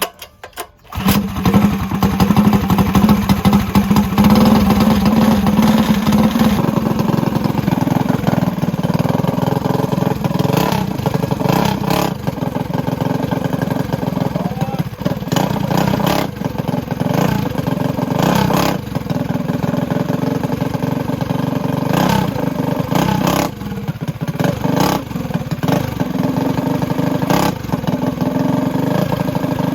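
Predator 212 single-cylinder mini bike engine, fuelled with E85, pull-started; it catches about a second in and keeps running. Its carburettor has just been fitted with a bigger pilot jet to stop it dying at idle.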